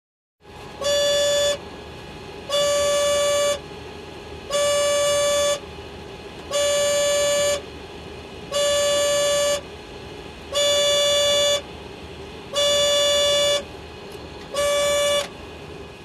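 Aircraft cockpit takeoff-abort warning alarm: a steady, horn-like warning tone sounding eight times, each just under a second long and about two seconds apart, over a constant cockpit hum.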